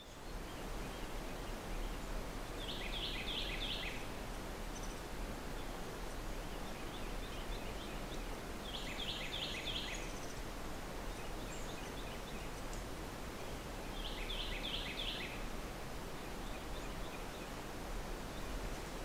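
Forest ambience: a steady hiss of background noise, broken three times, about six seconds apart, by a rapid burst of high chattering calls from an animal.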